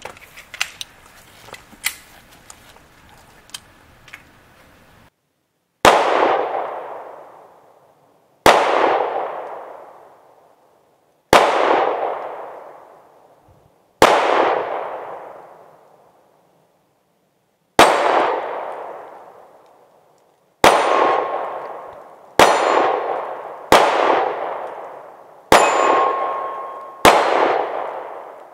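Ten pistol shots, the first about six seconds in and coming faster in the second half, each followed by the ring of the hit steel target dying away over a second or two. Faint clicks and handling noise come before the first shot.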